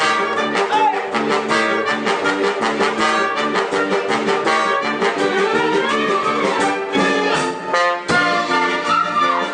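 Theatre orchestra playing a song accompaniment, brass to the fore, with a regular beat.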